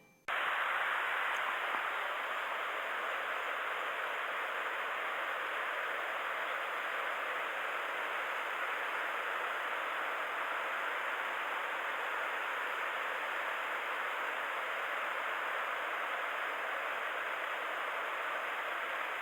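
Flowing mountain stream: a steady, even rush of water with no breaks.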